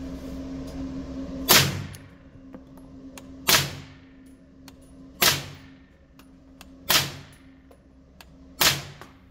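Five suppressed gunshots from an AR-pattern firearm, about one every 1.7 seconds, each followed by a short echo off the walls of an indoor range. A steady ventilation hum runs underneath.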